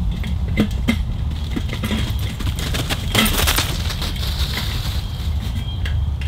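Sheet-metal stovepipe sections clinking and scraping as they are handled and fitted together. A string of sharp metallic knocks, the loudest a little after three seconds in, plays over a steady low rumble.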